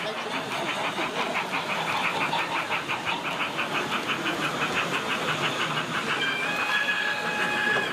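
A model steam locomotive's sound unit chuffing quickly and evenly. About six seconds in a steady steam whistle starts and is held for nearly two seconds, then cuts off.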